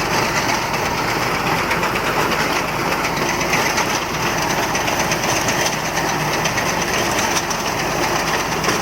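Reaper binder running: its small engine and moving mechanism give a steady, dense mechanical clatter.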